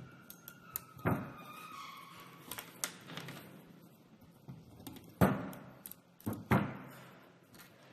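Handling noise as a nylon cable tie is threaded around an 18650 battery pack built with plastic terminal caps: a few sharp plastic knocks and clicks with light rustling between them. The two loudest knocks come past the middle.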